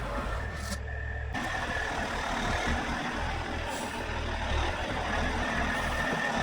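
Heavy diesel truck engine running steadily with a low rumble.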